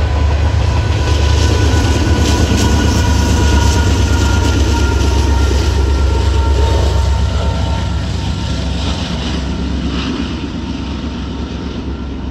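Norfolk Southern freight train passing: a steady low rumble of the locomotives and cars with wheel-on-rail clatter and a thin, steady high tone. It fades after about eight seconds as the train moves off.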